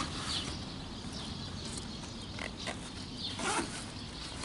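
Nylon carp sling rustling as it is handled on an unhooking cradle, with a few short, soft handling noises scattered through it.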